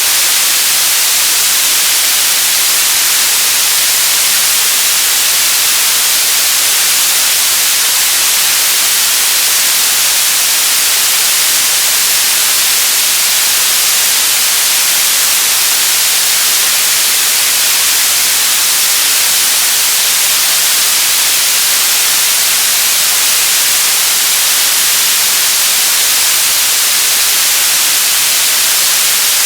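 Television static: a loud, steady hiss of untuned-channel noise, strongest in the high end, without any change.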